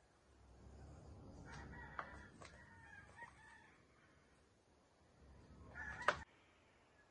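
Round aluminium baking pans being slid and shifted across a tiled counter: a low scraping rumble with the metal rims ringing at a steady pitch, in two spells. A few light knocks come in the first spell, and a sharp clack near the end marks the second.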